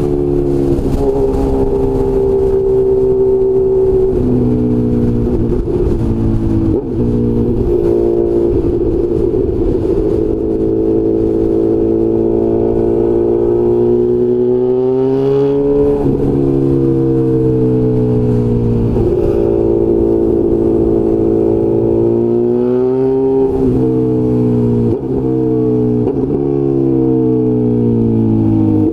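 Honda CB1000 inline-four motorcycle engine under way: the pitch climbs under throttle and drops sharply at each gear change. Near the end the engine note falls in steps as the bike slows.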